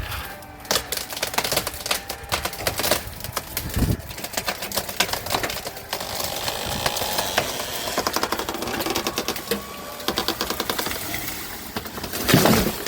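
A felled tree being pulled over: rapid crackling and popping of the wood as the hinge gives, then a loud crash as the tree hits the ground near the end.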